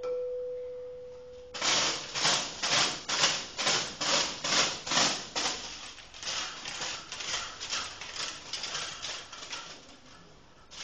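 A held ringing note dies away over the first second and a half. Then comes a run of rhythmic rubbing or scrubbing strokes on a rough surface, about three a second, which grow quicker and fainter in the last few seconds before stopping.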